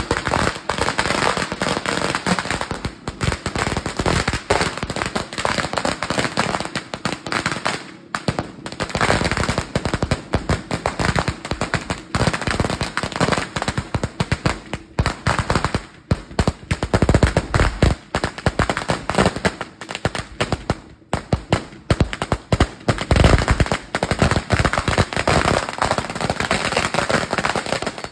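A 5,000-round 'sawa' firecracker string going off in a rapid, unbroken stream of bangs, with a few brief lulls.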